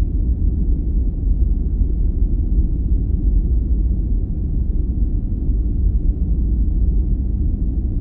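A steady, loud low rumble with no clear beat or tune.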